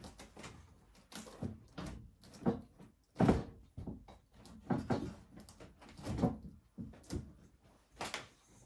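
A series of irregular knocks and bumps, the loudest a little over three seconds in, like solid objects being handled and set down.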